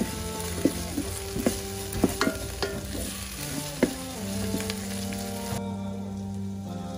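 Onions, green chilli and garlic-ginger sizzling in oil in a rice cooker's inner pot, stirred with a wooden spoon that taps against the pot several times in the first four seconds. The sizzle cuts off about five and a half seconds in.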